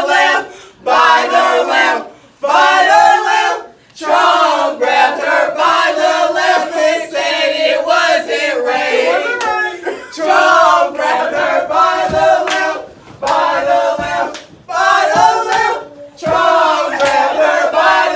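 A group of teenagers chanting and singing together in unison, in loud phrases broken by short pauses, with a few hand claps.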